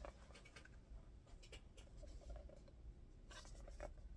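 Near silence, with faint scratching and a few light ticks from fingers handling a small cardboard toy box as it is turned over.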